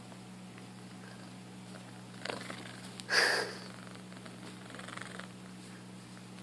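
A cat making short purring, rumbling sounds as it plays at a hand; the loudest comes about three seconds in and lasts under half a second, with a fainter one just before it.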